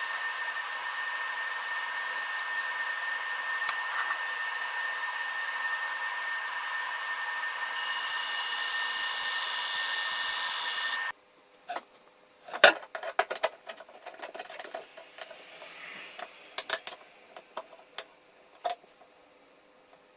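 Monport 100W fiber laser engraving into aluminium plate with its fume extractor running: a steady hiss with a high tone, joined by a brighter hiss for the last few seconds. It cuts off suddenly about eleven seconds in, followed by scattered clicks and knocks of metal parts being handled.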